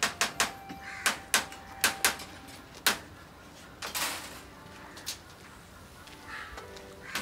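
Sharp taps and clicks of hand work on a wire birdcage, several a second for the first three seconds, then only now and then, with a short hiss about four seconds in.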